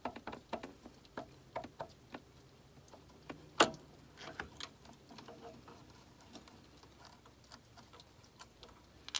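Irregular light clicks and knocks from the old vacuum pump of a Mini Cooper S N14 engine being rocked back and forth by hand to break its seal and pulled off the engine, with one sharp, much louder click about three and a half seconds in.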